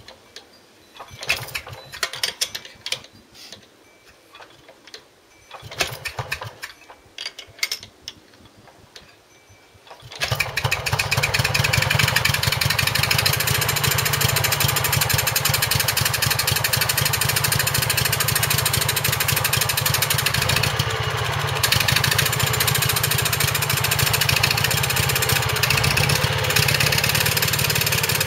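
Villiers WX-11 stationary engine on a generating set: two short spells of clicking and rattling as it is worked on by hand, then it starts about ten seconds in and runs steadily at a fast, even beat.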